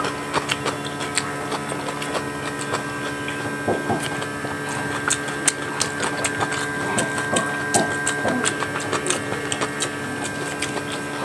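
Close-miked mouth sounds of someone eating rice and fish by hand: chewing with many short wet clicks and lip smacks, over a steady electrical hum.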